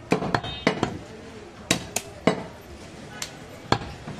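Meat chopping: about eight sharp, irregular knocks of a blade striking a wooden chopping block.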